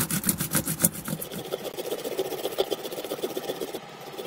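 Garlic cloves being grated on a small stainless-steel hand grater. Rapid rhythmic rasping strokes at about five a second in the first second, then softer and less regular scraping.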